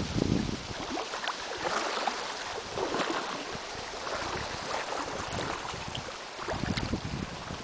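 Creek water running steadily, with short splashes scattered through, and wind buffeting the microphone at the start and near the end.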